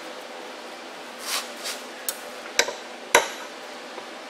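Hammer tapping a cold chisel to knock the half-circle retaining clips off the caps of a universal joint in a Dana 44 front axle shaft. Softer metal clinks come a little over a second in, then three sharp metallic taps about half a second apart.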